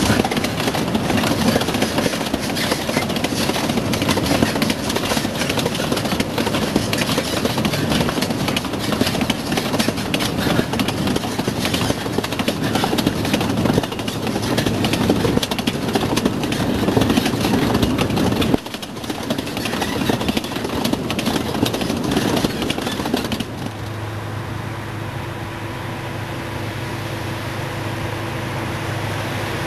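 Loaded sugar-cane wagons on a narrow-gauge cane railway rolling past, a busy clatter of wheels over the rail joints. The sound changes suddenly twice, and for the last few seconds only a steady engine hum is heard.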